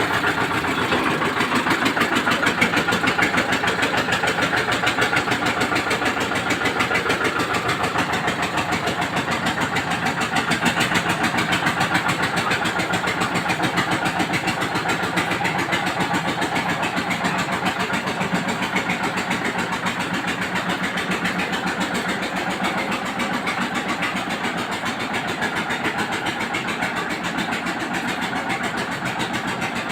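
Engine of a home-made dung-cleaning rig running steadily at an even speed, with a fast, regular beat.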